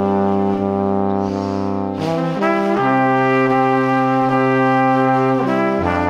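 Background music of slow, long held chords, changing chord about two seconds in and again near the end.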